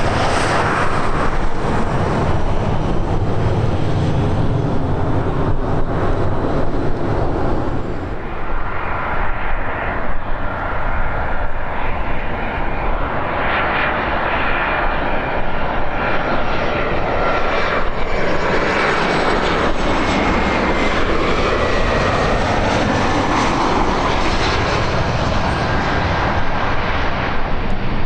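Airliner's engines as it passes close by: a continuous rush of engine noise with faint whining tones that slowly fall in pitch. Wind buffets the microphone with a low rumble in the first few seconds.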